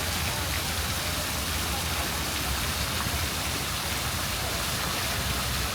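Steady rain falling on city streets, with a low, constant urban hum underneath.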